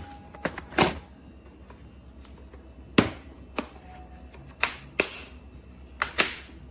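Scattered sharp clicks and knocks, about eight in all at irregular intervals, over a faint steady low hum.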